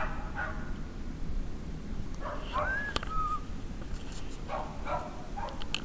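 Dogs barking in short bursts: two barks at the start, another a little after two seconds, and a quick run of barks near the end. A brief high cry rises and falls between them.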